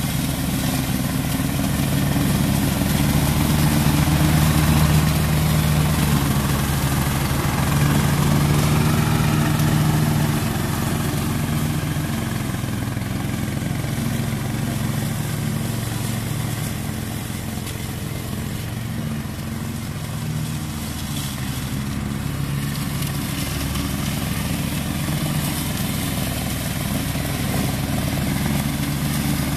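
Ride-on lawn mower's single-cylinder Briggs & Stratton 6.5 hp four-stroke petrol engine running steadily with the blade engaged, cutting through tall grass. The level swells over the first ten seconds, then eases a little and holds.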